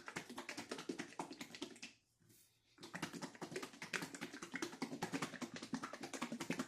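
A plastic bottle of buttermilk ranch dressing being shaken, a rapid clatter and slosh in two bouts with a short pause about two seconds in.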